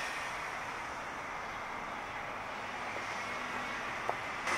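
Steady outdoor background noise, an even rumble and hiss, with one faint click about four seconds in and the noise growing louder right at the end.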